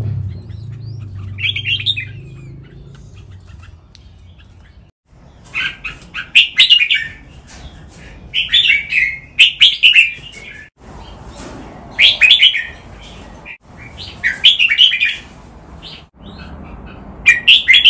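Red-whiskered bulbul singing: loud, quick warbled song phrases repeated about six times, a couple of seconds apart, after one short call near the start.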